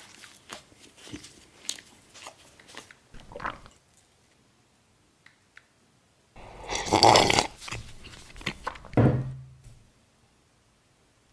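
Crunchy biting and chewing clicks for a few seconds, a pause, then loud noisy drinking from a glass of frothy liquid, ending in a second loud gulp.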